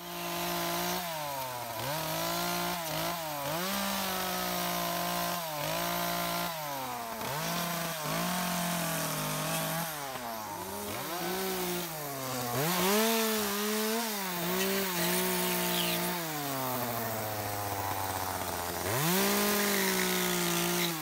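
Small carving chainsaw's two-stroke engine cutting into dead cedar wood, its pitch dipping and recovering every second or two as the chain bites into the trunk. For a few seconds near the end it drops toward idle, then revs up again.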